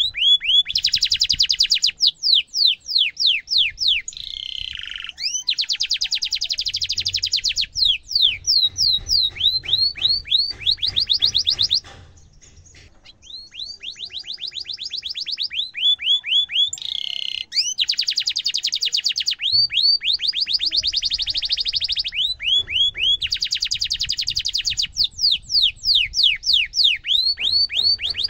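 Canary singing hard, high-pitched: long fast rolling trills alternate with rapid runs of repeated sweeping chirps. The song breaks off briefly about twelve seconds in, then resumes.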